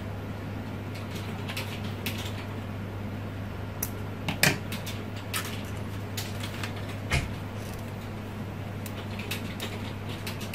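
Scattered light clicks and taps from handling craft materials (thin wire, crepe-paper leaves and tools) on a plastic cutting mat, with a sharper click about four and a half seconds in and a duller knock about seven seconds in. A steady low hum runs underneath.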